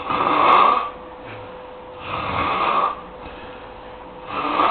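Snoring: three drawn-out snores about two seconds apart, each lasting just under a second.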